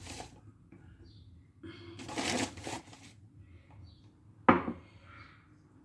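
Rustling as more flour is poured from its bag into the bread dough, then a single sharp knock about four and a half seconds in.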